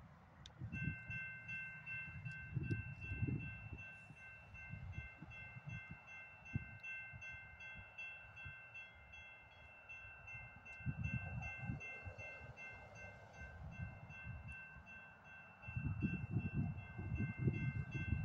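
Railroad grade-crossing bell ringing continuously as the crossing activates, a steady high metallic ringing that starts about a second in. Irregular low gusts of wind buffet the microphone, strongest near the end.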